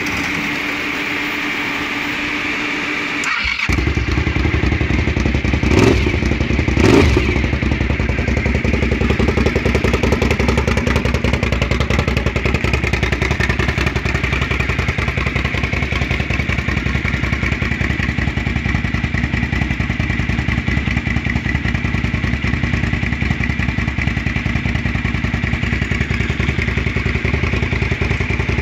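2003 Suzuki TL1000R's V-twin engine being started: the starter cranks steadily for about three and a half seconds before the engine catches. It is revved briefly twice, then settles into a steady idle.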